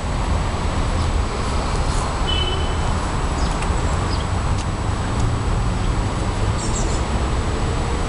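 Steady outdoor background noise with a low rumble, and a few brief faint bird chirps, one about two seconds in.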